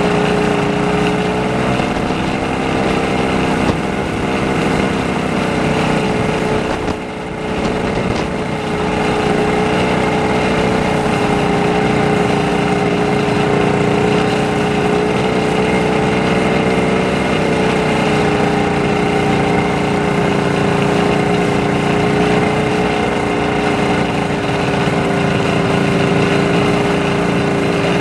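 1970 Arctic Cat Panther 340's big single-cylinder two-stroke snowmobile engine running steadily while towing a caboose sled, with a brief dip in its note about seven seconds in.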